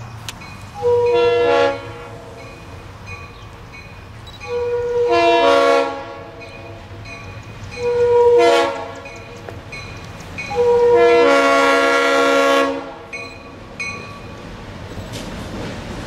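Air horn of an approaching consist of ALCo diesel locomotives sounding four blasts, the last and longest lasting over two seconds. The locomotives' diesel engines grow louder near the end as the train draws close.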